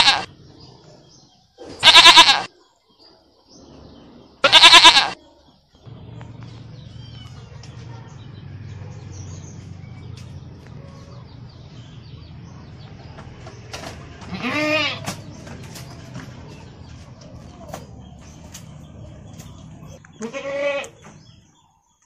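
Farm animal bleating: three loud quavering calls in the first five seconds, then two more, about 15 s and 20 s in, over a steady low hum.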